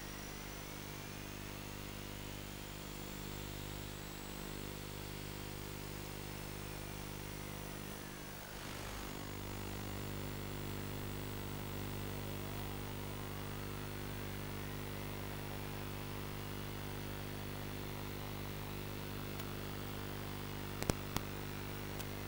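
Steady electrical hum and buzz from an analog FPV video link, with faint whistling tones slowly sliding up and down in pitch; the aircraft is disarmed at zero throttle, so no motors are heard. A few sharp clicks come near the end.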